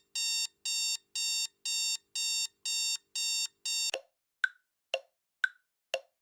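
Digital alarm clock beeping, a high electronic beep about twice a second, which stops about four seconds in; a clock then ticks about twice a second, alternating tick and tock.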